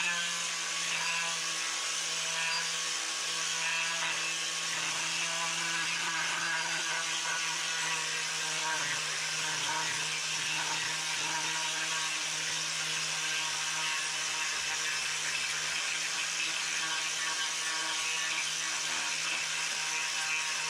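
A power carving tool running steadily on wood, a constant hum of unchanging pitch over a dense high hiss.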